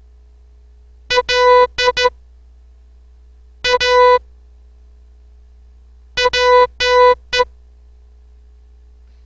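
Morse code practice tone keyed in dots and dashes: three characters sent with long pauses between them, the last one dot-dash-dash-dot, for the listener to decode.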